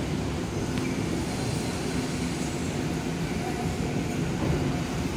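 Randen Mobo 21 series tram pulling slowly into a terminal platform: a steady low running rumble with a faint hum.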